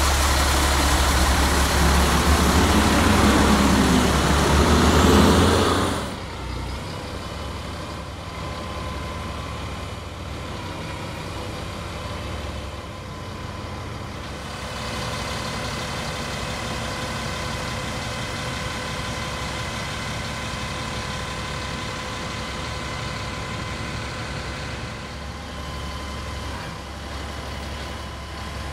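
The CAT 3126 diesel engine of a Freightliner FL70 bucket truck idling steadily, with a steady whine over it. It is louder and closer at first, then drops suddenly about six seconds in.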